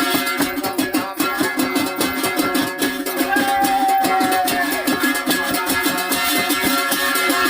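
Folk dance music with a fast, even plucked-string rhythm and a single held note a little after the middle.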